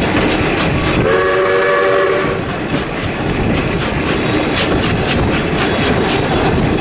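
Steam locomotive 621's whistle sounding one blast of about a second and a half, over the steady clatter of the moving train, its carriage wheels clicking over rail joints.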